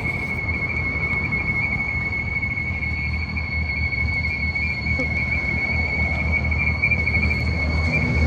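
BMW 340i's B58 turbocharged inline-six idling with a steady high-pitched whistle over its low running sound: the typical vacuum whistle of a failed PCV diaphragm in the valve cover.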